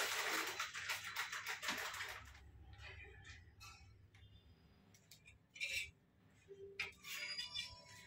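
Kitchen handling sounds as a metal spoon adds spice powders to grated raw potato and rice flour in a baking tray: a dense rustling scrape for about the first two seconds, then a few scattered light clicks and taps of the spoon and containers.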